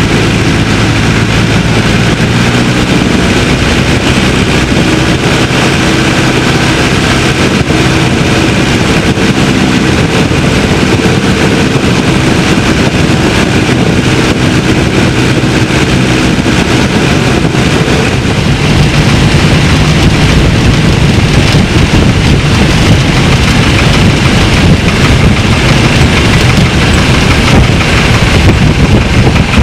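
Piper J-3 Cub's engine running throttled back on a landing approach, heard from inside the open cockpit with wind rushing past. About two-thirds through, as the plane touches down, the sound turns louder and rougher with the rumble of rolling on grass.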